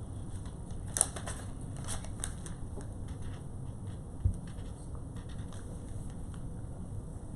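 Highlighter writing on a sheet of paper, with a few sharp scratchy strokes about a second in and again around two seconds in, then a single low thump a little past four seconds.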